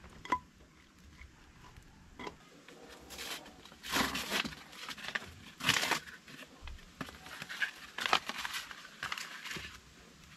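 Handling noises: short rustling and scraping sounds, a few louder than the rest, with scattered light clicks and knocks as utensils and food on a plate are worked by hand.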